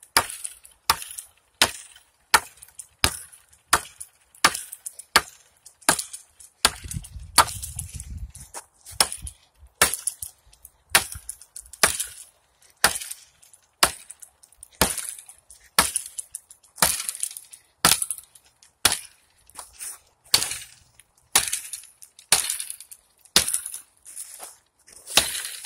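Axe chopping into a small tree trunk: a steady run of sharp strikes, about one every three-quarters of a second, as it splinters chips out of the notch.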